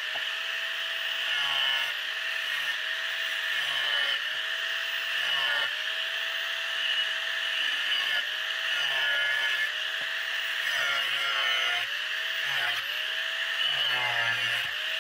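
Angle grinder with an abrasive disc cutting through a steel tube, giving a steady high whine. The motor's pitch sags and recovers every second or two as the disc bites into the metal.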